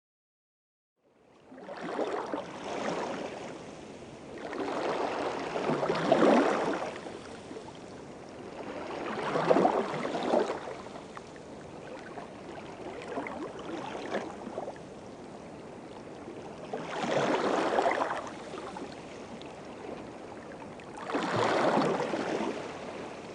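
Small waves washing in, the water swelling and falling back about every four seconds. It starts about a second in.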